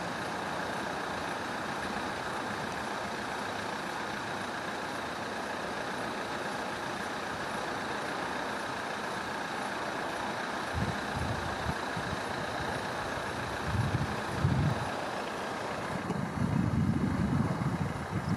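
Level crossing warning alarm sounding steadily while the barrier is down and the red lights flash. From about eleven seconds in, irregular low rumbles swell in underneath, loudest near the end.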